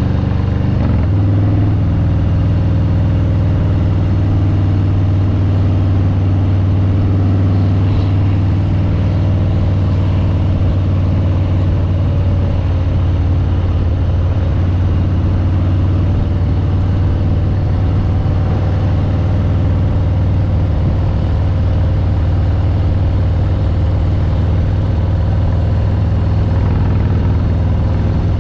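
Harley-Davidson Street Bob 114's Milwaukee-Eight 114 V-twin engine running through its exhaust while riding, holding a steady cruising note with a shift in pitch about a second in.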